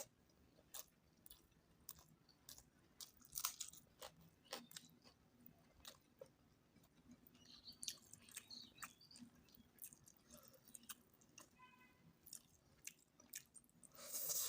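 Close-up eating sounds of a person eating goat curry with potato: quiet wet chewing and mouth clicks at irregular moments, with a louder smack about three and a half seconds in and again near the end.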